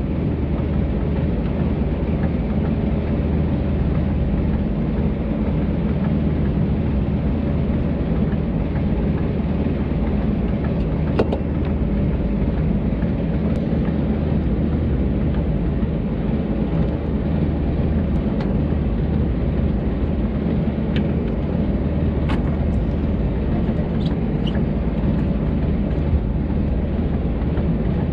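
Boat engine running steadily, a constant low drone, with a few faint ticks scattered through it.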